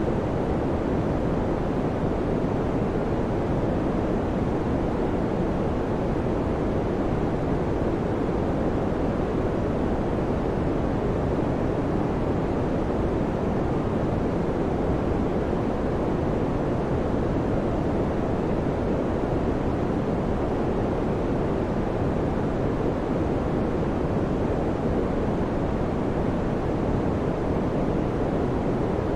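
Electric fan running steadily: an even, low rushing noise of moving air with no change, hum or rattle.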